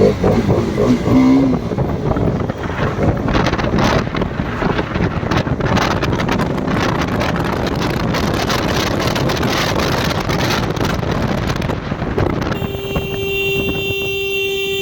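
Wind buffeting a phone microphone over the road and engine noise of a motorcycle being ridden. About twelve and a half seconds in, a vehicle horn sounds one long, steady note.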